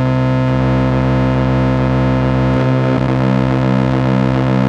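Vintage Korg MS-20 analog synthesizer holding one buzzy, distorted note, with ring modulation and pulse width modulation patched in. A little over halfway in, the tone starts to pulse about twice a second.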